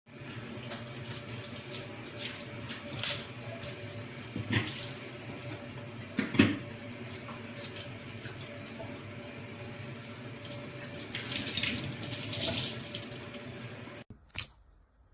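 Steady rush of running water, like a tap running into a sink, with a few sharp knocks; it cuts off abruptly about fourteen seconds in.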